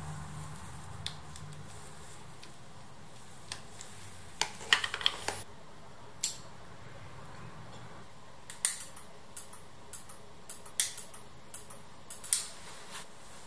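Scattered light clicks and taps of small plastic and metal wiring parts, such as spade connectors and relays, being handled and plugged in. There is a short cluster about five seconds in and a denser, irregular run of clicks in the last few seconds.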